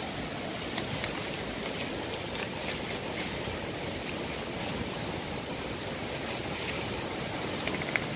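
Steady wind-like rushing background noise, with a few faint scratching ticks.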